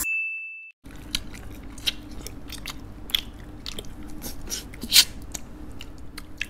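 A single bright ding at the start that rings for under a second while all other sound drops out, then close-up eating sounds: chewing, lip-smacking and slurping of samgyetang chicken, with sharp clicks, the loudest about five seconds in.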